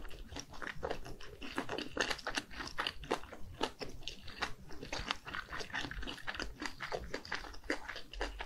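Close-miked chewing of a mouthful of spicy red-sauced fish cake: quick wet clicks and squishes, several a second, as the jaw works.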